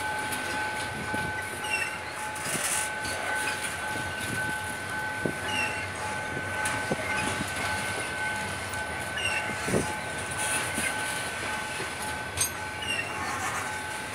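Freight train of covered hopper wagons rolling past close by: a continuous rumble with scattered knocks from the wheels, over a steady high-pitched two-note squeal.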